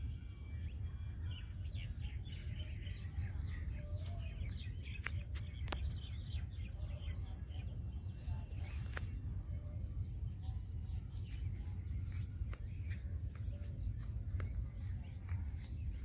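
Birds chirping and calling in the open, most busily in the first half, over a steady high insect drone and a constant low rumble, with a few sharp clicks.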